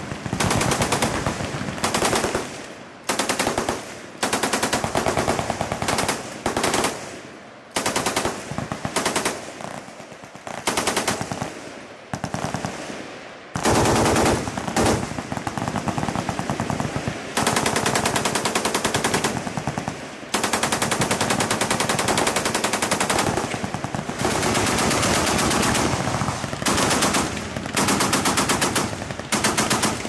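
Belt-fed machine guns firing in repeated bursts of rapid automatic fire. Some bursts are short and others run for several seconds, with only brief gaps between them.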